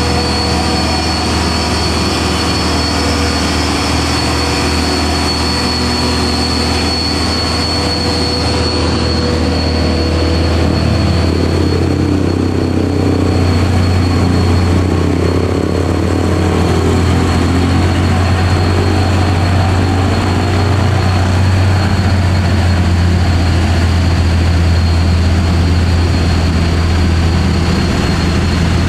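Heavy diesel truck engines labouring up a steep climb in low gear, running loud and steady, with a steady high-pitched whine above the engine noise. The sound grows somewhat louder about halfway through as another truck passes close by.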